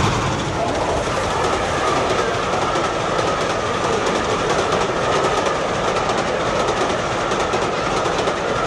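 Model train running along the track, its wheels clicking over the rail joints, with a steady whine.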